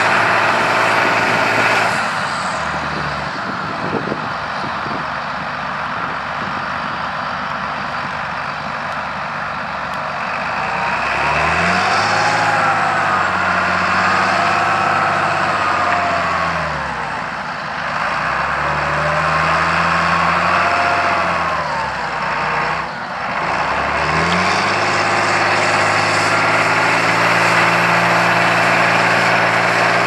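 John Deere 8400T tracked tractor's diesel engine working under load in deep mud. Its note drops about two seconds in, then rises and falls twice from about eleven seconds on, and stays high near the end.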